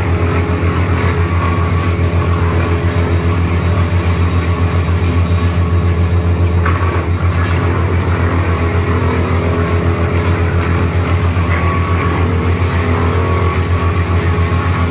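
Wood chipper's engine running loud and steady, with an even rapid pulse.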